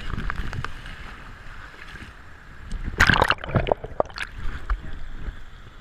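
Shallow beach water washing and sloshing around a waterproof action camera, with a steady low rumble on the microphone. About three seconds in comes a brief louder burst, then a few short knocks as the camera is handled.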